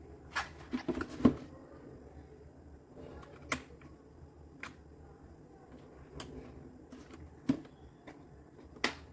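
Keys of a Redragon K596 Vishnu mechanical keyboard with linear red switches being pressed: a quick flurry of keystrokes in the first second or so, then single key strokes every second or two.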